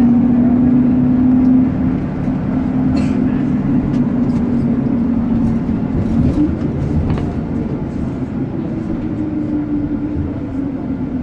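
Road vehicle heard from inside while driving, with a steady motor whine over road noise. The whine jumps up in pitch about six seconds in, then slowly sinks.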